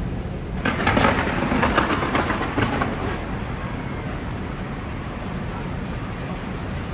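Fireworks crackling: a sudden burst of rapid crackles about half a second in that dies away over the next two seconds, over a steady low rumble.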